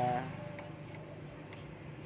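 A man's drawn-out "ah" trails off at the start, then a steady low background hum with a couple of faint clicks.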